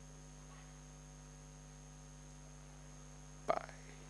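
Steady electrical mains hum from the recording setup, with a single short click about three and a half seconds in.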